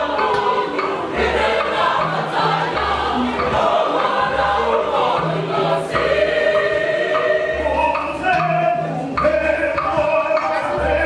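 Mixed choir of men and women singing together, over a low beat that repeats about once a second.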